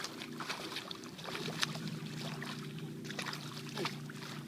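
Boat motor running steadily at low speed, with scattered short clicks and splashy water noises over it.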